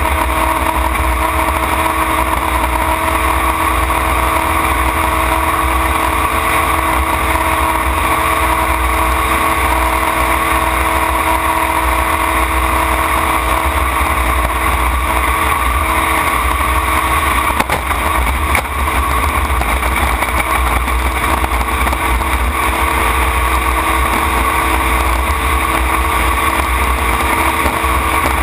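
Racing tunnel-hull jet boat's engine running steadily at racing speed, heard from the open cockpit with water and wind rush; the level dips briefly about two-thirds of the way through.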